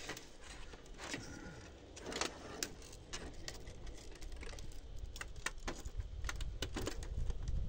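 Small, sharp clicks and light metallic clinks from a monitor's thin fluorescent backlight tube and its metal holder as they are handled and worked loose. They come irregularly, several a second in the second half. A low rumble rises underneath from about halfway.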